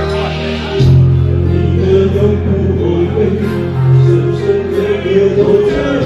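Karaoke: a man singing into a handheld microphone over a backing track. Held, gently wavering notes sit over a steady bass line, and the backing gets louder about a second in.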